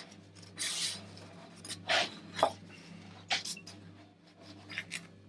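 Pages of a large paper sketchbook being handled and turned, a few short rustles and brushing sounds of hand on paper.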